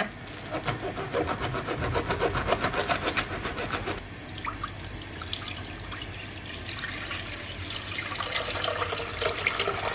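Milk poured from a plastic bag into a non-stick pot: a dense crackle of plastic and splashing for the first few seconds, then a steadier pouring stream as the pot fills.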